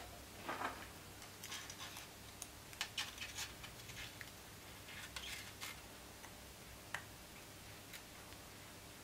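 Faint, irregular clicks and short rustles of small plastic parts and a thin wire cable being handled as the cable is threaded through a 3D-printed PETG handpiece, with one sharper click about seven seconds in.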